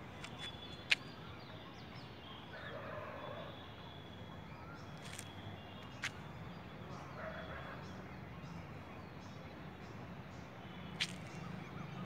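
Fowl calling now and then over steady background noise, broken by three sharp clicks about five seconds apart, the first the loudest.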